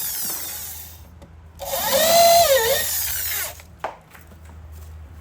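Power drill motor revved in a short burst of about two seconds, its whine rising, dipping and winding back down, followed by a sharp click.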